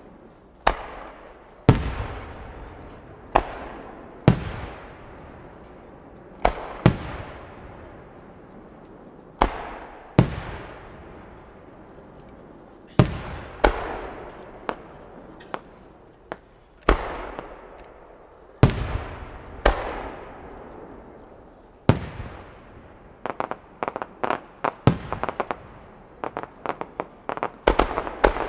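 Japanese aerial firework shells, No. 4 and No. 5 size, bursting one after another a second or several apart, each a sharp bang that dies away in a long echo. From about two-thirds of the way through, a quick string of smaller bangs and pops follows.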